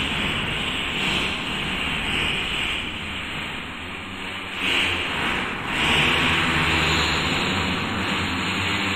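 Fart sound effects: a continuous low, rumbling, engine-like stream with no gap, swelling louder about five seconds in and again a second later.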